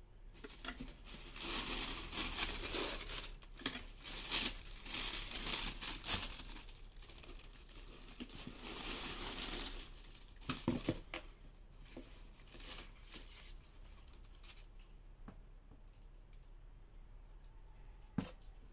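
Tissue paper rustling and crinkling as it is pushed aside in a cardboard shoebox, dense through the first half. Later come lighter rustles and a few dull knocks of the sneaker and box being handled, with one more knock near the end.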